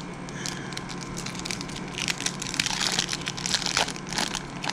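Foil wrapper of a 2012 Topps football card pack crinkling as it is pulled open by hand: light rustling at first, then a dense crackle from about two seconds in.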